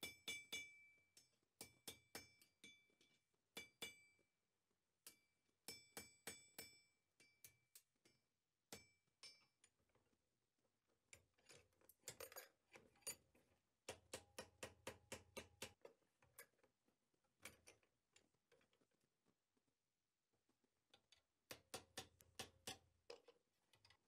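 Faint hand-hammer blows on red-hot iron, first on an anvil and then on the piece clamped in a vise, in runs of quick strikes with short pauses; the first blows leave a bright metallic ring. The smith is forging the shoulder where a lock bolt's scroll meets the bolt.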